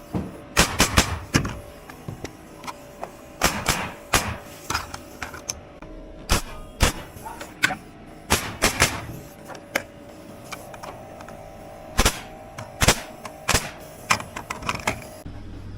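House framing work: a series of sharp knocks and bangs on lumber at irregular intervals, many coming in quick runs of two to four blows.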